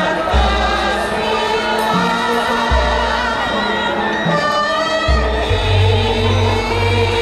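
Javanese gamelan ensemble playing with singers, a deep low note struck about every two and a half seconds under the melody.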